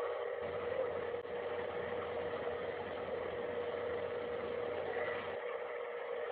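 A steady, engine-like drone with one held mid-pitched tone, the kind of unexplained hum posted as a 'strange sound' in the sky. A deeper rumble joins it about half a second in and drops away near the end.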